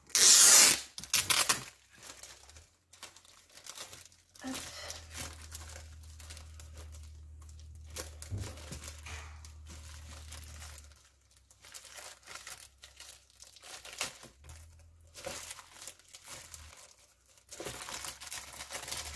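Clear plastic packaging sleeve being torn open with a loud rip in the first second or so, then crinkling and rustling as the plastic is pulled back and a pad of scrapbooking paper is worked out of it.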